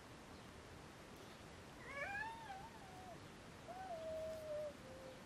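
A cat meowing twice, faintly: a wavering call about two seconds in, then a longer call that slides down in pitch.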